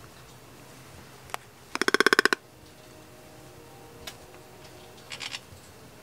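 Toco toucan giving a quick rattle of about ten clicks in just over half a second, the loudest sound here. A single click comes just before it, and a shorter, softer rattle of three or four clicks follows a few seconds later.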